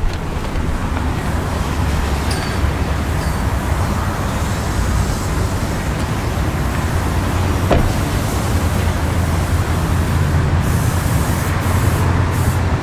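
Steady, loud rumbling noise with a hiss over it, and a single sharp knock about two-thirds of the way through.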